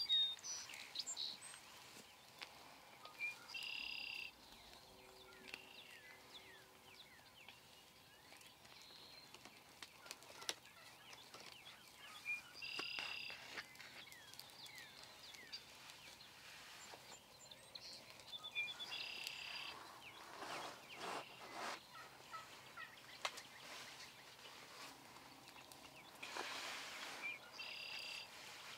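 Flock of wild turkeys calling faintly, many short calls with a few stronger ones every several seconds.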